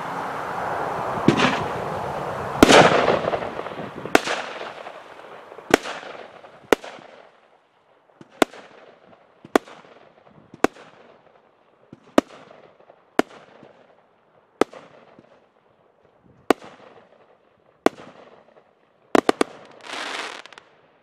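A 16-shot, 200-gram consumer firework cake firing shot after shot: sharp bangs about every second or so, the first few over a hissing rush, each followed by a short fading tail. Near the end a quick double bang comes, then a brief hiss.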